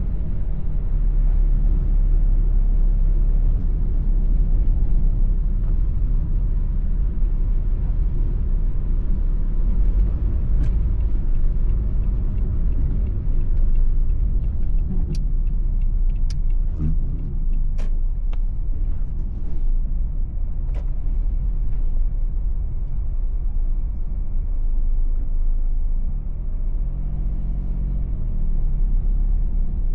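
A car driving, heard from inside the cabin: a steady low engine and road rumble, with a scattering of short sharp clicks through the middle.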